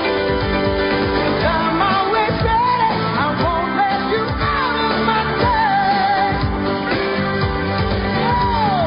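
Background music: a pop song over a band backing, with a singing voice coming in about a second and a half in and ending on a long falling note.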